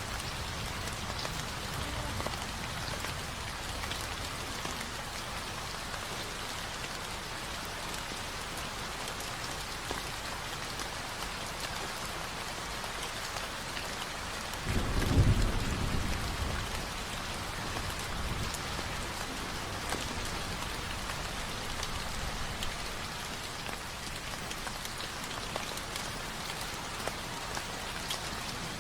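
Steady rain falling, with one low rumble of thunder about fifteen seconds in.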